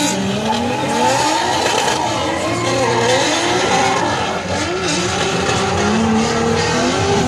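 Two drift cars running in tandem, their engines revving up and down as they slide, with tyres squealing.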